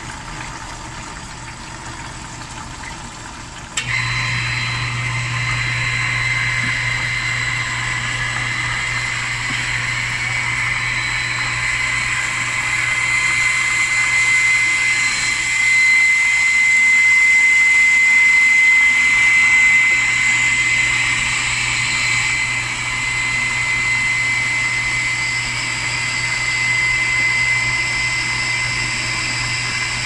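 Water rushing into a Midea front-load washing machine through its inlet valve and detergent drawer, with the steady hum of an electric booster water pump that joins abruptly about four seconds in. The washer keeps filling without stopping, the sign of a faulty water level sensor (pressure switch).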